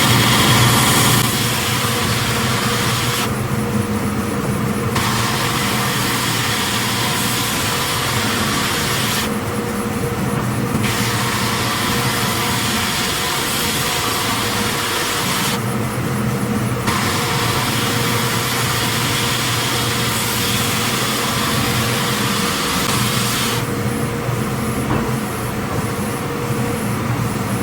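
36-inch Timesaver wide belt sander running with a coarse 36-grit belt on an Osage orange slab: a steady grinding hiss over the machine's low hum. The hiss cuts out four times for a second or more while the hum runs on.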